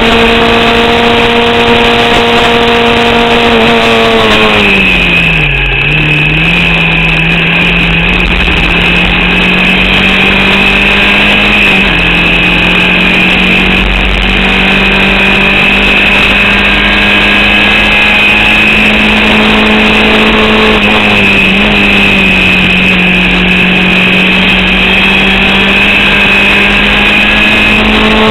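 Onboard sound of a Formula Vauxhall 8v racing car's engine running hard at high, near-steady revs, with a steady high whine over it. About five seconds in the revs drop sharply and come back as the driver lifts, then climb slowly; there is a shorter dip about three quarters of the way through. The engine is misfiring and losing power to an alternator/battery fault, per the driver.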